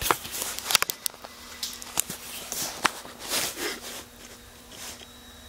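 Handling noise from a handheld camera being moved in closer: scattered sharp clicks and taps with short rustles, over a faint steady hum.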